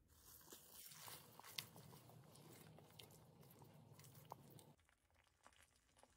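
Faint wet squelching and scraping from a silicone spatula stirring saucy shredded chicken in a non-stick pan, with a few sharp clicks. It stops about five seconds in.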